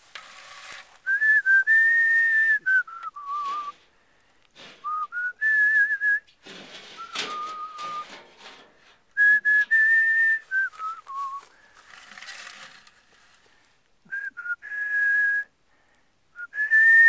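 A man whistling a tune: a single clear note stepping up and down between held pitches, in short phrases with pauses between them.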